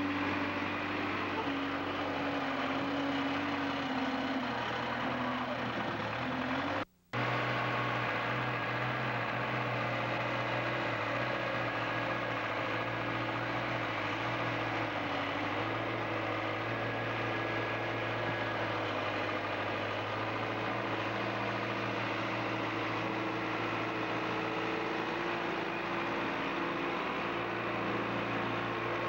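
Tractor loader's engine running steadily. The sound cuts out for a moment about seven seconds in, then the engine runs on at a slightly different pitch.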